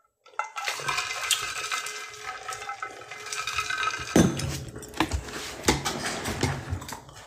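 A steady, water-like rushing noise with a few clinks and knocks.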